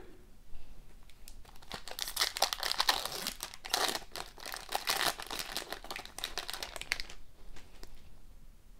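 Foil wrapper of an Upper Deck hockey card pack being torn open and crinkled by hand: a dense run of crackling that stops about seven seconds in.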